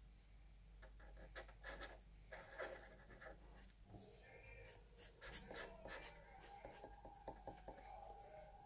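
Faint scratching of a marker pen drawing strokes on paper.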